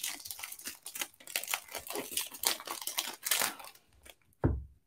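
Clear plastic wrapper of a Mosaic football cello pack crinkling as it is torn open and the cards are pulled out. Near the end comes a single dull thump.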